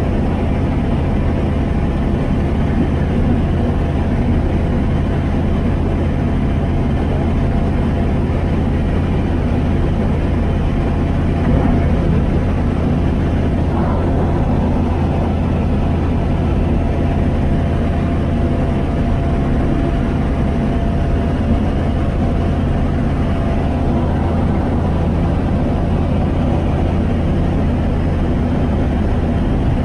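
Apollo Fox ultralight aircraft's engine and propeller running at a steady cruise setting, a constant drone heard from inside the cockpit.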